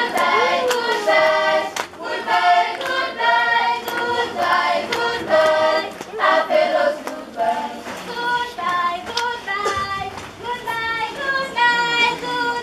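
A group of students singing together as a choir while clapping their hands in rhythm.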